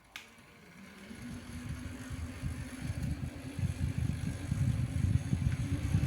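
A switch click, then a small neck fan's motor spinning up with a faint rising hum, its blades blowing air that buffets the microphone as a low, fluttering rumble growing steadily louder.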